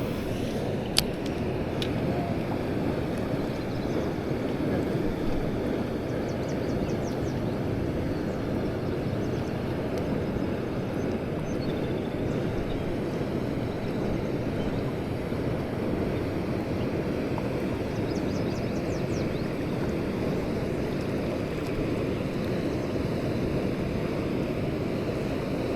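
Steady rush of water coming down a spillway, with a single sharp click about a second in.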